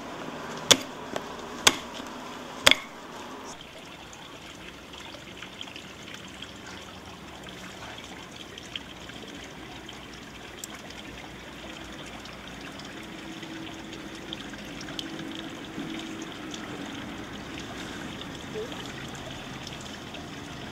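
Water trickling steadily, after a few sharp knocks in the first three seconds.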